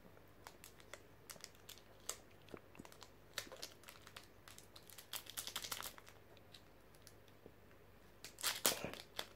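Foil booster-pack wrapper crinkling and crackling in the hands as it is torn open, in short sharp crackles that grow loudest near the end.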